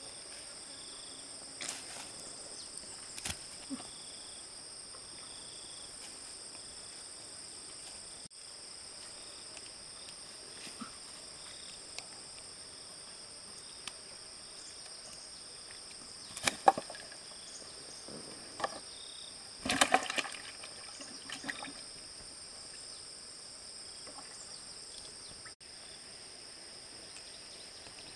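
Steady high-pitched insect chorus holding two unbroken high tones. A few sharp knocks and clatters break in twice about two-thirds of the way through.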